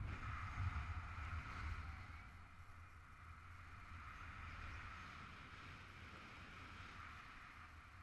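Wind rushing over the microphone in flight under a paraglider: a low rumble with a hiss on top, louder in the first two seconds and then easing.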